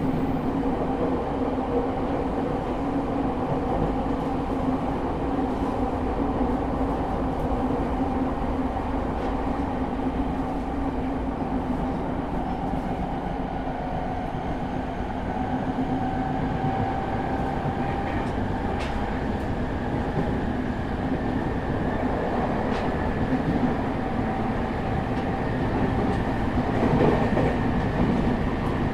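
Running sound inside a JR East E217 series electric train's motor car, fitted with a Mitsubishi GTO inverter and MT73 traction motors, at speed. Steady traction motor and gear whine rides over rumbling wheel and track noise, with a fainter higher whine that rises slowly in pitch in the second half.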